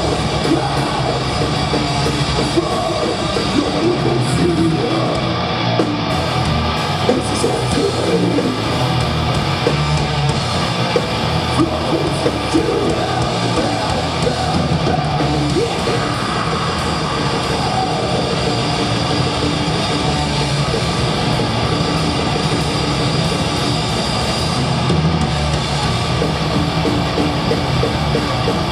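Death metal band playing live, loud and dense without a break.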